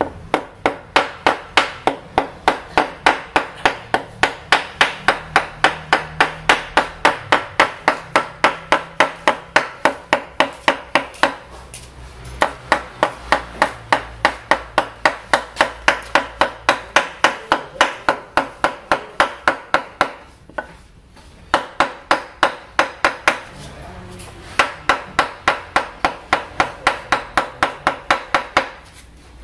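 A wooden mallet tapping a cylinder liner down into the bore of an Isuzu Panther diesel engine block, seating the liner. Quick taps, about three a second, come in long runs broken by a few short pauses, and each tap has a metallic ring.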